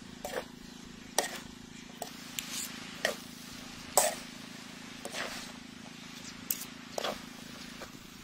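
Fried noodles being tossed and turned in a wok with metal utensils: irregular scrapes and clinks about once a second over a steady low hum.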